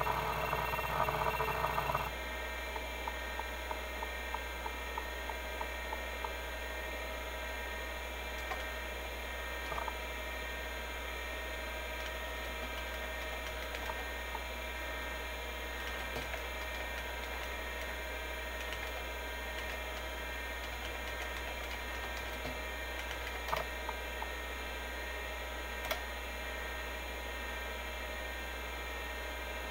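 Seagate ST-251-1 MFM hard drive running a disk benchmark: a steady spindle whir, with a dense burst of head-seek noise for the first two seconds. Then comes a run of small regular seek ticks about two a second, and after that only a few isolated clicks.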